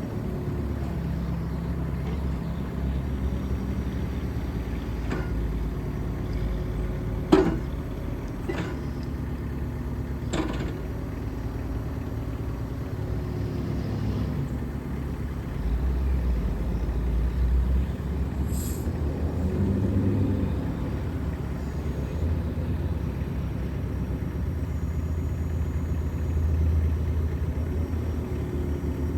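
Mitsubishi MM40T mini excavator's four-cylinder S4L diesel engine running, its level rising and falling with load. Three sharp knocks come about seven to ten seconds in.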